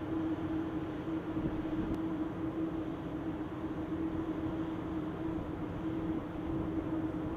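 Steady, unchanging hum with one constant tone over an even rumble, like running machinery.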